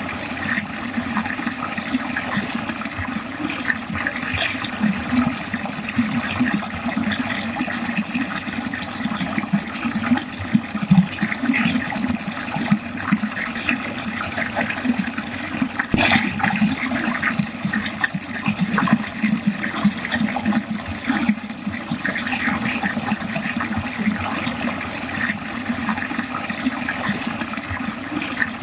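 Water running and gurgling steadily down a drain, a continuous bubbling flow, with a brief click about halfway through.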